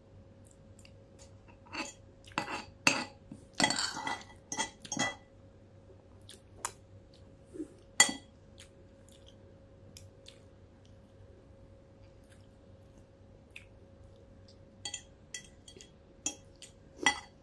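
Metal spoon and fork clinking and scraping against a ceramic plate while eating: scattered groups of sharp clinks with quiet pauses between them.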